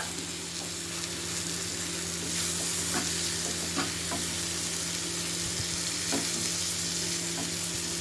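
Vegetables and masala sizzling in a pan as they are stirred, with curd just added, and a utensil knocking or scraping against the pan a few times. A steady low hum runs under it.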